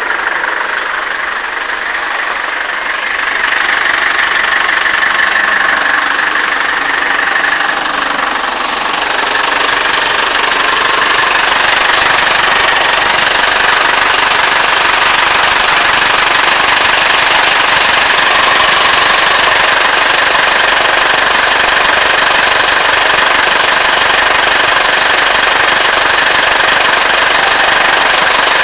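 Engine running with a loud, steady, noisy whir, the annoying noise that appears after it has sat idle for about ten hours. The noise gets louder about four seconds in and again about ten seconds in, then holds steady.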